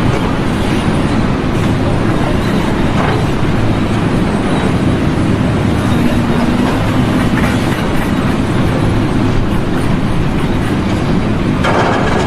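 Loud, steady machinery noise: a dense rumble with a low hum.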